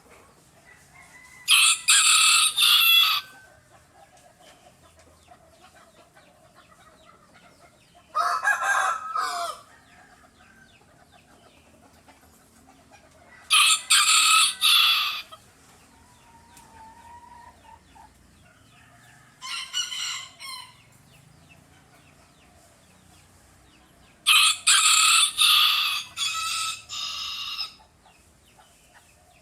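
Roosters crowing back and forth: five cock-a-doodle-doo crows about five to six seconds apart, the fourth one fainter.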